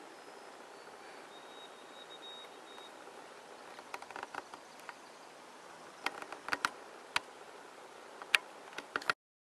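Outdoor background hiss with a thin, high steady tone for about a second and a half, then a scattering of sharp clicks and taps from about four seconds in, the loudest near the end. The sound cuts off abruptly shortly before the end.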